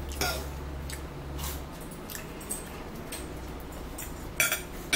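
Close-up eating sounds: wet chewing and lip smacking, with light clicks of cutlery on a plate and two sharper clicks near the end.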